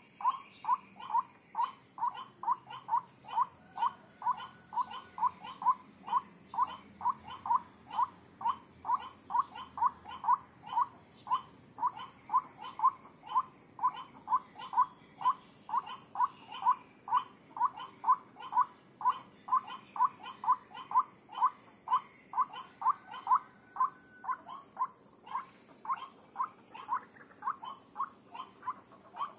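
White-breasted waterhen (ruak-ruak) calling: a steady, rhythmic run of short, repeated notes, about two to three a second. It is played as a lure call for trapping the bird.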